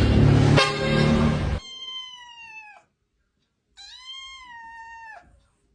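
Loud music cuts off about one and a half seconds in. Then a cat gives two long meows with a pause between them, each dropping in pitch at the end.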